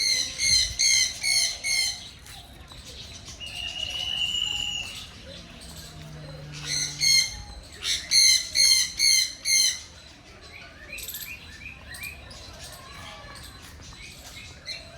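Birds squawking in two bouts of loud, harsh calls repeated about four to five times a second, one at the start and another from about halfway, with a single held whistle between them and softer chirping afterwards.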